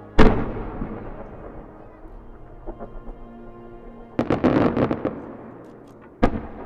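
Aerial firework shells bursting. One very loud bang comes just after the start and dies away slowly, a quick cluster of sharp reports follows about four seconds in, and another sharp bang comes near the end.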